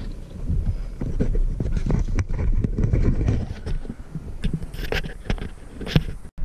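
Irregular knocks and rustles over a low rumble: someone moving and handling things inside the parked vehicle, its engine switched off. A sharp click comes near the end.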